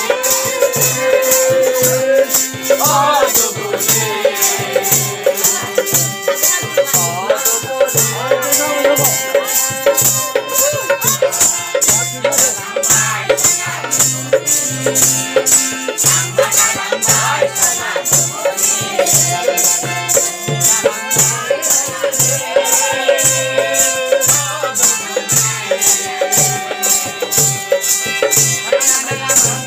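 Bodo Bwisagu dance music: a harmonium playing held tones over a rattling percussion beat of about three strokes a second.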